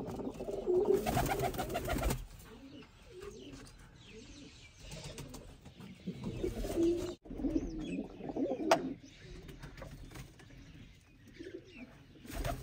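A flock of white domestic high-flying pigeons (bazi wale kabootar) cooing, with soft rustling early on and one sharp click about nine seconds in.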